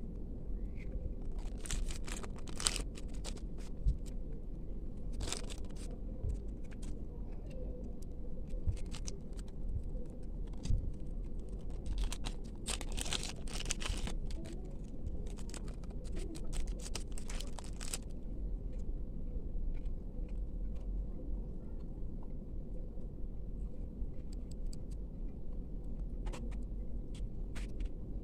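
Packaging being handled, crinkling and tearing in several separate bursts of crisp crackles, the longest lasting several seconds midway, over a steady low hum.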